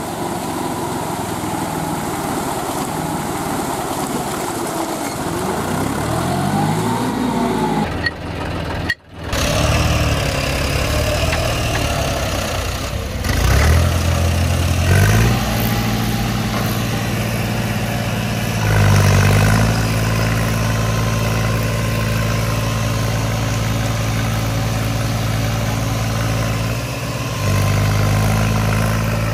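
Diesel tractor engine of a John Deere 5050 E working hard under load, straining to drive out of deep mud. The revs rise and fall at first, the sound breaks off briefly about a third of the way in, then the engine holds high, steady revs with two steps up and a short dip near the end.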